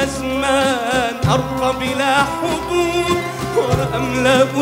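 A male soloist singing an ornamented Arabic vocal line whose pitch wavers and bends. He sings over a steady, sustained low backing.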